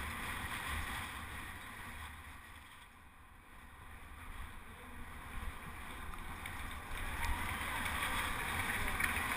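Wind buffeting the microphone of a helmet-mounted camera on a moving penny-farthing, a steady low rumble with faint road and crowd noise above it. It dips quietest about three seconds in and grows louder again near the end.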